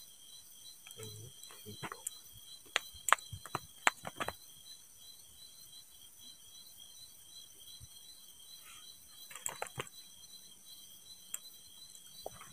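Crickets chirping steadily in high, pulsing trills, with scattered sharp clicks and knocks, the loudest a few seconds in.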